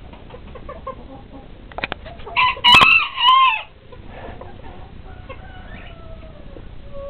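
Bantam chickens clucking softly, then a bantam rooster crows once, a short call about halfway through; faint, drawn-out falling calls follow near the end.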